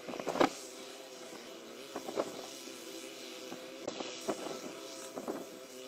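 Small narrow-gauge locomotive's engine running with a steady drone as it approaches. Irregular clanks and knocks come from its wheels riding over the warped, loosely laid rails, the loudest about half a second in.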